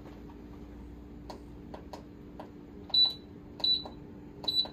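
Control-panel buttons of an electric pressure cooker pressed to set a 40-minute cooking time. Soft clicks at first, then three short high beeps about three-quarters of a second apart near the end, over a steady low hum.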